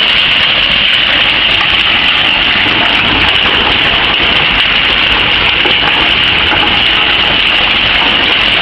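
Steady, loud machinery noise from an aluminium scrap shredding line, with conveyors and their drives running and a strong high hiss over it that does not change.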